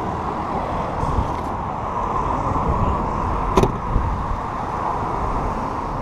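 Steady motor-vehicle noise, a low rumble with a hiss, and a single sharp click about three and a half seconds in.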